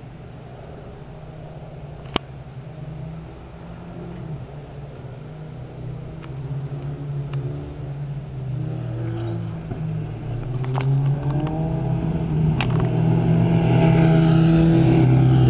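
A motorcycle engine approaching and accelerating, growing steadily louder with rising pitch and loudest as it passes near the end, over a steady low engine hum. A few sharp clicks along the way.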